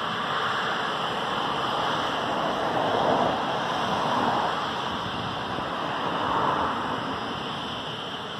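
Royal twin-turbine helicopter on the ground powering up: a steady turbine whine over a loud rush of engine and rotor noise, swelling and easing a few times.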